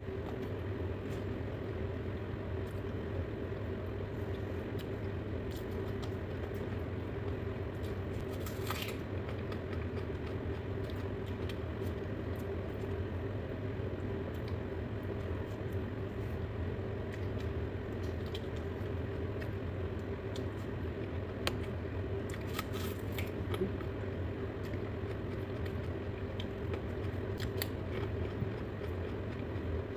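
A steady low mechanical hum with a few scattered short clicks and crunches.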